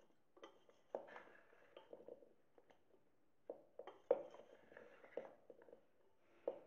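Steel spoon scraping and knocking against a stainless steel bowl as cauliflower florets are tossed in a dry flour coating. The strokes are irregular, with a sharper knock about four seconds in.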